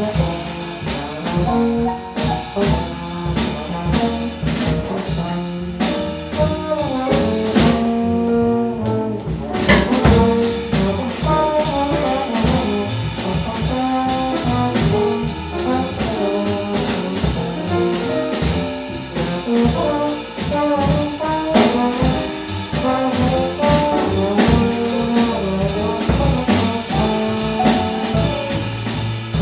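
Jazz played by a small band: a brass horn carries the melody over drums. About eight seconds in the cymbals drop out for a moment, then the band comes back in with a strong hit just before ten seconds.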